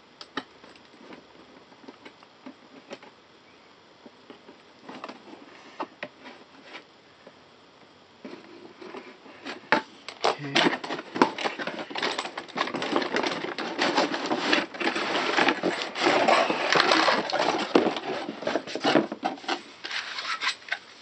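Cardboard toy box being opened and its packaging handled. At first there are only scattered small clicks and scrapes; from about eight seconds in comes dense crackling and rustling of cardboard and packaging.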